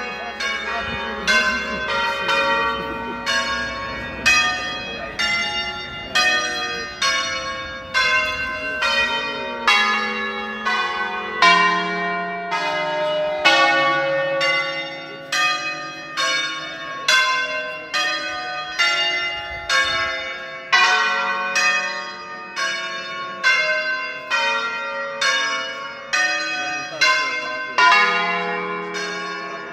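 Ten church bells tuned in D-flat major, rung full-circle by hand in the Veronese system, striking one after another at about two strikes a second, each note ringing on over the next as the pitches step through a melody.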